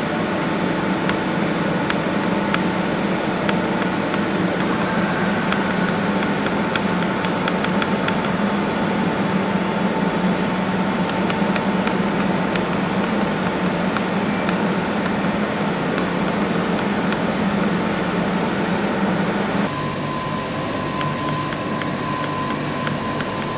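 Steady mechanical hum of wood impregnation and hot-oil plant machinery, noise with a few steady tones underneath. About twenty seconds in it changes abruptly to a slightly quieter hum with a higher steady whine.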